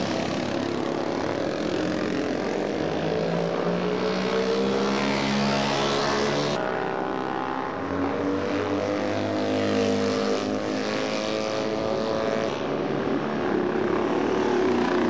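Several vintage DKW two-stroke racing motorcycles passing one after another at speed, their engine notes overlapping and sweeping up and down as they come by.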